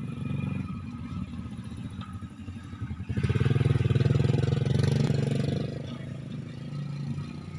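Small motorcycle engine running as a bike loaded with grain sacks rides past close by, getting much louder about three seconds in and then fading as it moves away.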